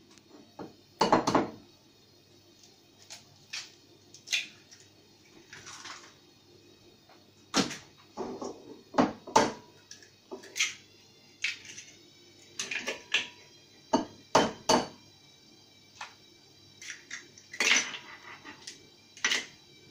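Eggs tapped against a small glass bowl and cracked open: a string of sharp taps and clinks, several leaving the glass ringing briefly.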